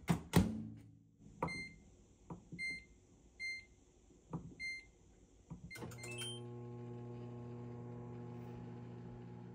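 Samsung countertop air-fryer oven being started: a couple of knocks at the start, a short touch-panel beep about once a second while air-fry mode is set, then a quick rising start chime about six seconds in. The fan then starts and runs with a steady hum.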